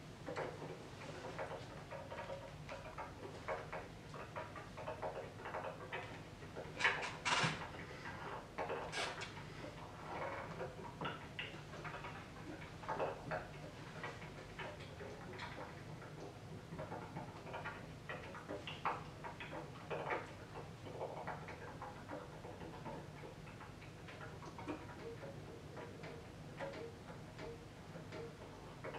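Bass clarinet played with extended technique: a scattered run of short clicks and pops instead of sustained notes, with a few louder pops about seven and nine seconds in.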